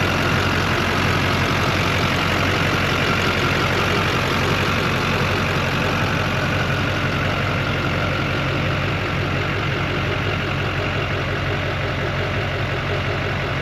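A Chevy Silverado 3500's Duramax 6.6-litre V8 turbodiesel idling steadily, fitted with a cold air intake and downpipe.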